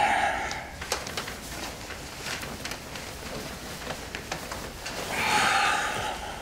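A man breathes out two heavy sighs, one at the start and one about five seconds in, while he shifts in bed. Soft rustling and small clicks from the bedding come between the sighs.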